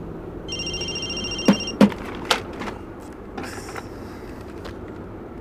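Mobile phone ringing with a high, pulsing electronic ringtone, once about half a second in and again at the very end, over the steady road rumble inside a moving car. Three sharp clicks fall between about one and a half and two and a half seconds in.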